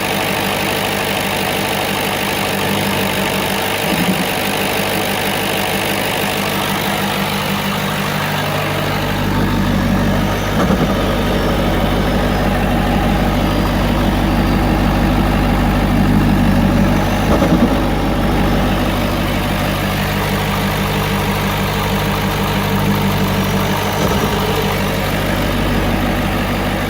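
Ford 6.7 Power Stroke V8 turbo-diesel idling with a turbo flutter, which the owner thinks means the wastegate needs adjusting. A deeper low rumble comes in about a third of the way through and stays.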